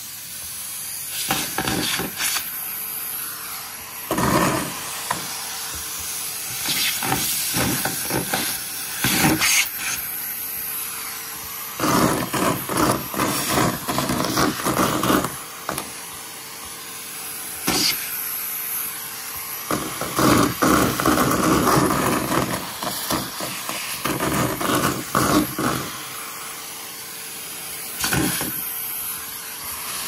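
Numatic Hetty cylinder vacuum cleaner running, its steel wand sucking up small squares of card from a plastic basket: a steady suction hiss broken by irregular bursts of rattling as the pieces clatter up the tube.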